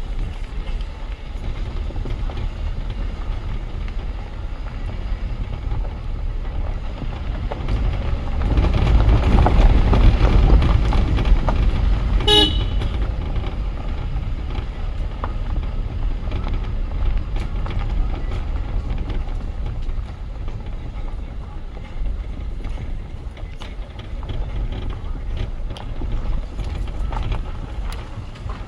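Steady low road rumble from a vehicle on the move, swelling for a few seconds in the middle, with one short horn toot about twelve seconds in.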